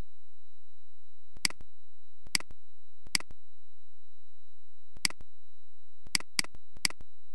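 Computer mouse clicks, seven single sharp clicks at uneven intervals, including a quick pair about six seconds in, over a faint steady high-pitched tone.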